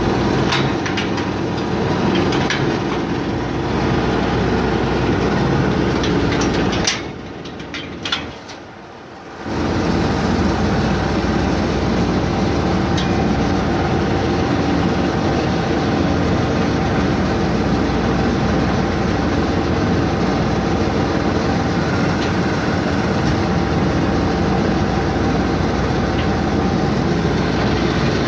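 The drive motor of a 1922 Eli Ferris wheel running steadily with a mechanical rattle. It drops away for about two seconds, about seven seconds in, then runs on as before.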